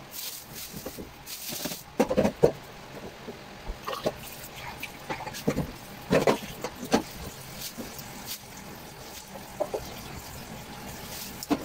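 Kitchen handling sounds: a plastic bag rustling, with scattered short knocks and clatters of things being picked up and set down on the counter.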